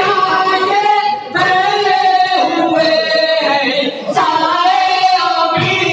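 Two men singing a noha, an unaccompanied Urdu lament, together into a microphone in long, wavering held phrases. The singing breaks briefly about a second in and again near four seconds.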